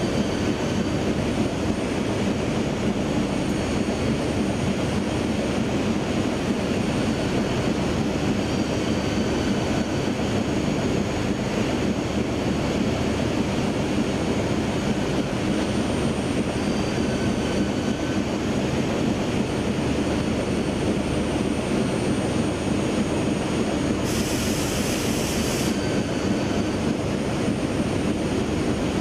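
Adult pants (disposable diaper) production line running, a steady mechanical noise that fills the hall. A short high hiss cuts in and stops about 24 seconds in.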